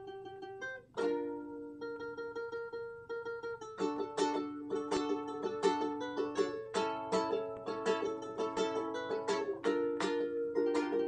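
Background music: a plucked string instrument picking out a melody, with quick notes that ring and fade.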